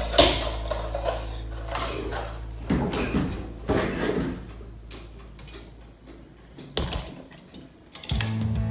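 Clicks, knocks and clatter of a ring light and its stand being handled and fitted together, about half a dozen separate knocks spread through, the loudest right at the start.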